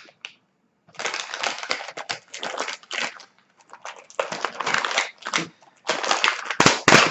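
Plastic cookie packaging being opened and handled, an irregular run of crinkling and crackling, with the sharpest crackles near the end.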